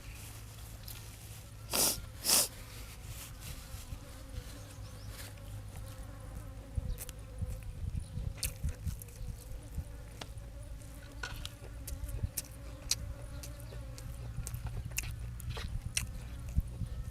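Eating sounds: scattered short clicks of chewing and utensils against a bowl over a steady low hum, with two louder noisy bursts about two seconds in.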